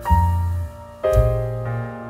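Background keyboard music: piano-like chords over a deep bass, a new chord struck about once a second.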